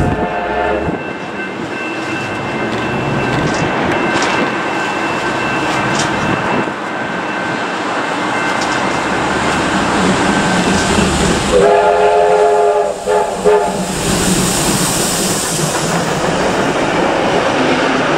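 A steam-hauled heritage train running on the rails. Its whistle, several notes sounding together, ends about a second in and sounds again about twelve seconds in, as two short blasts. A high hiss follows.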